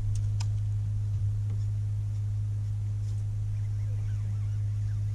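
Electric trolling motor running with a steady low hum, plus a couple of faint clicks near the start.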